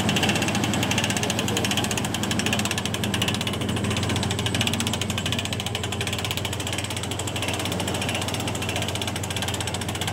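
Hand-cranked boat trailer winch ratcheting, its pawl clicking rapidly and steadily as the strap draws a dory up onto the trailer. A steady low hum runs underneath.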